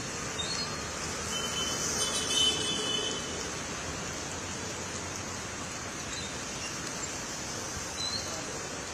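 Heavy rain on a city street with traffic: a steady hiss of rain and wet road noise under idling vehicles, with a brief higher-pitched tone about two seconds in.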